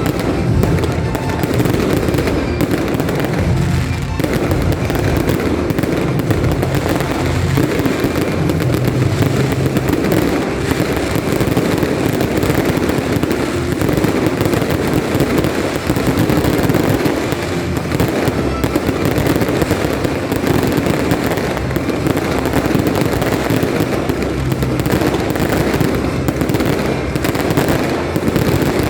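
Fireworks display: a dense, continuous barrage of bursts and crackling with no pause, with music underneath.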